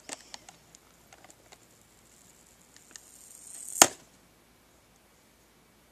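Plastic blister packaging being pried open with a pencil: small clicks and crinkles, then a short rising scrape that ends in one sharp snap of plastic about four seconds in.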